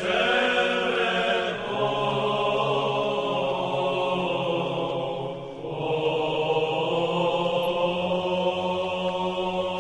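Byzantine chant sung by a choir, in long held notes. It dips briefly about five and a half seconds in, then a new phrase begins.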